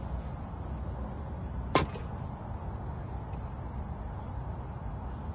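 Golf flagstick dropped into the hole cup: one sharp click with a brief ring about two seconds in, then a lighter tick as the ferrule seats. A steady low rumble runs underneath.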